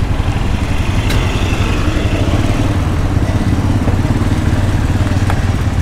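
Small engines of golf carts and side-by-side utility vehicles running steadily together as a line of them drives off, a low, even engine rumble.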